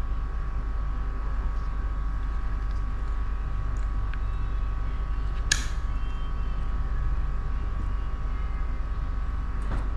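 Steady background hum, with one sharp click about halfway through and a few faint ticks as a Shimano Ocea Jigger 1501HG conventional fishing reel is handled.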